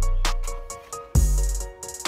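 Background music: a beat with heavy, deep bass drum hits a little over a second apart, quick high ticks between them, and a sustained keyboard-like melody.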